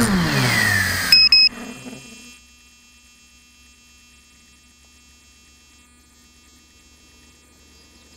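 FPV quadcopter's electric motors spinning down in a falling whine as it sets down in the grass. Two short high electronic beeps follow, then only a faint steady electrical hum.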